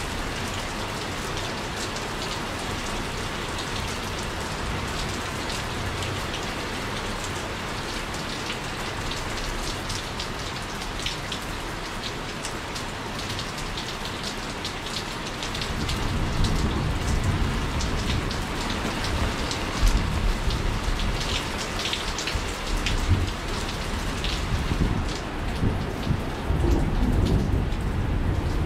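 Steady rain falling, a continuous hiss with scattered drop ticks. About halfway through, a long low rumble of thunder comes in and swells and fades irregularly over the rain.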